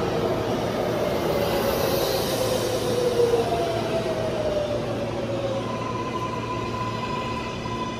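R143 subway train's electric traction motors whining with falling pitch as it slows into the station, over the rumble of wheels on the rails. A steady high tone comes in near the end as it comes nearly to a stop.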